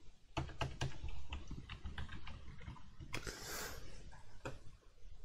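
Computer keyboard typing: irregular, soft key clicks, with a brief hiss about three seconds in.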